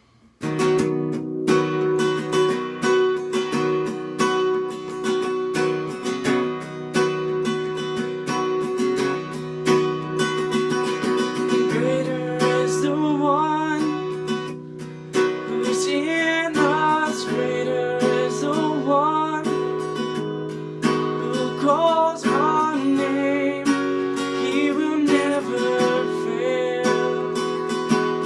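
Acoustic guitar strummed steadily, starting about half a second in. From about halfway through, a wavering melody line rides over the chords.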